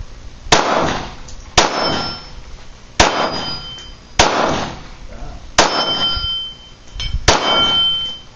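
Glock 19 Gen 4 9mm pistol fired six times at a slow, even pace, a shot every second or so. Four of the shots are followed a moment later by a short metallic ring from the steel gong target being hit.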